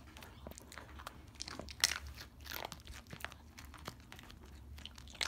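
Dogs crunching and chewing food from their bowls: a run of irregular, sharp crunches, the loudest a little under two seconds in.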